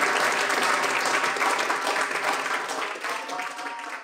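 Audience applauding at the end of a talk, a dense clatter of many hands clapping that fades away near the end.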